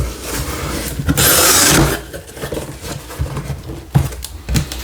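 Shipping packaging being opened and handled by hand: paper wrapping rustling and crinkling, loudest for about a second near the start, with a few light knocks and taps against the box.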